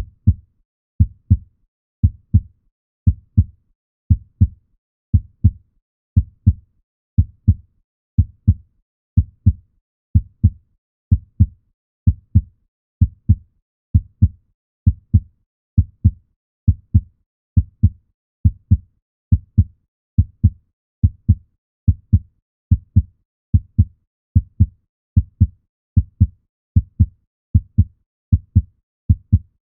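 Heartbeat sound effect: low double thumps (lub-dub) repeating steadily, about one beat a second at first and gradually quickening.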